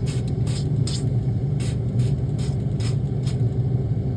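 Repeated quick squirts of a hand spray bottle shooting hot water into a frozen ice-maker fill tube to melt the ice blockage. Under the squirts runs a steady low hum.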